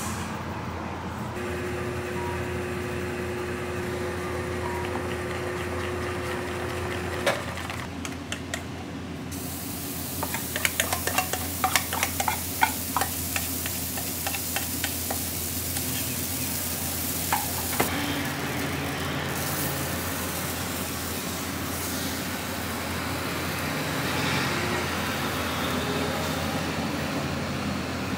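Crepe-making sounds: a wire whisk working in a stainless steel bowl, and crepe batter sizzling on a hot griddle as it is poured and spread with a wooden spreader. A run of quick clicks comes about ten seconds in, over a steady background hum.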